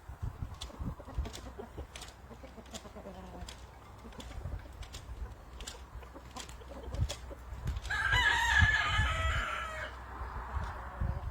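A rooster crows once, a pitched call about two seconds long, starting about eight seconds in.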